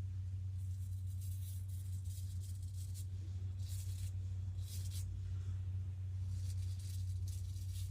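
A vintage GEM push-button single-edge razor scraping through stubble in several short, faint strokes at irregular spacing, during the against-the-grain pass. A steady low electrical hum runs underneath.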